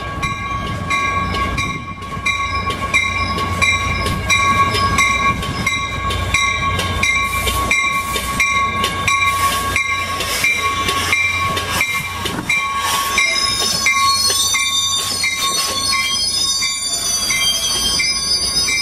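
Caltrain commuter train arriving, cab car leading: a bell rings steadily at about two to three strokes a second over the rumble of the cars rolling in. From about two-thirds of the way through, high squeals break out as the wheels and brakes slow the train to a stop.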